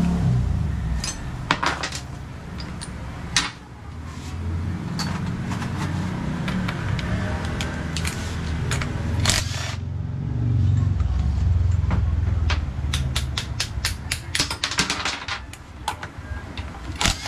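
Irregular sharp metallic clicks and clanks, coming thick and fast near the end, over a low rumble.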